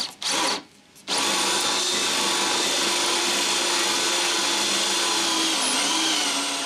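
Ridgid cordless drill boring a hole into painted wood with a large bit. It gives two short bursts, then runs steadily for several seconds with a motor whine whose pitch dips slightly near the end.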